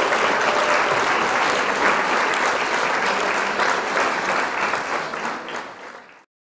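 Audience applause, a dense patter of clapping that fades away and cuts off into silence about six seconds in.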